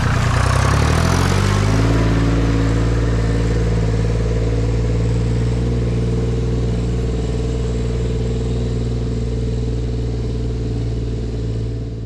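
Farm tractor engine revving up over the first couple of seconds as the loader tractor pulls away, then running at a steady speed, fading out at the very end.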